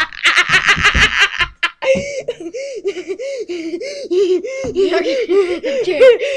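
A boy's exaggerated, deliberately annoying laugh: quick bursts of laughter, a brief pause, then a long run of high sing-song laugh syllables, each rising and falling, about two to three a second.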